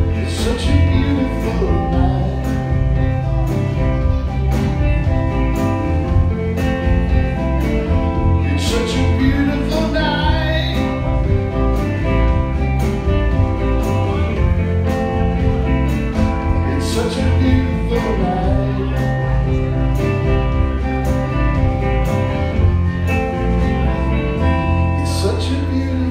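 Live rock band playing: electric guitar, bass guitar and drum kit, with a man singing at times.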